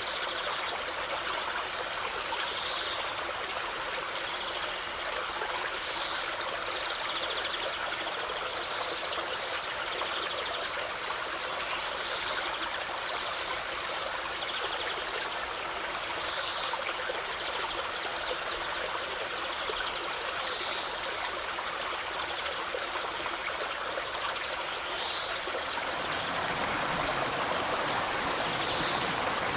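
River water flowing, a steady rushing that grows fuller and deeper about 26 seconds in.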